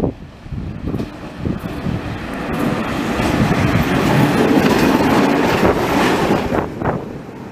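A ČD class 750 diesel-electric locomotive approaches and passes close by. The running of its V12 diesel engine builds to its loudest as the locomotive draws alongside, with wheels clattering on the rails. The sound drops away near the end as it goes past.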